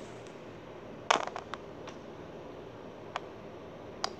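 Clicks and taps of small plastic toy figurines being handled and set down on a glass tabletop: a quick cluster of clicks about a second in, then a few single taps spread out afterwards.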